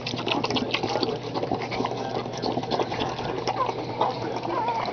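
Boxer mother licking her newborn puppy: a quick, continuous run of wet licking and slurping clicks.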